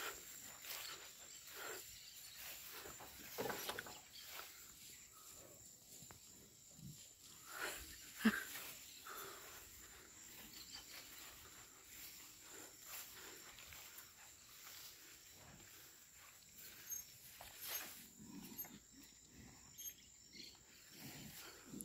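Quiet pasture sounds around a herd of white zebu cattle: scattered faint rustles and a few brief snorts from the animals, with a sharper knock about eight seconds in, over a steady high insect drone.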